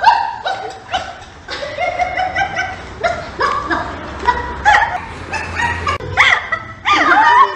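Large white dog yipping and barking excitedly while jumping on and wrestling a child: a rapid string of short, high calls that swoop up and down in pitch, loudest near the end.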